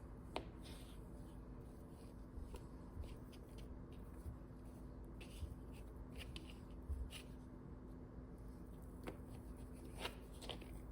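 Faint, scattered clicks and taps of biscuit dough being cut into dumpling pieces, over a low steady hum.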